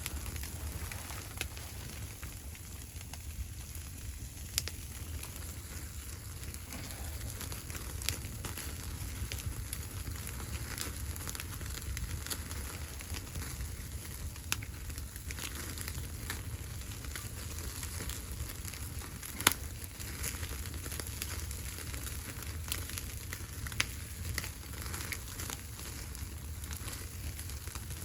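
Wood fire crackling, with scattered sharp pops over a steady low rumble; the loudest pop comes about two-thirds of the way through.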